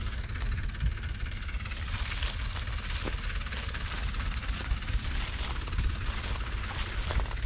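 Wind buffeting the microphone: a heavy, uneven low rumble with a hiss over it.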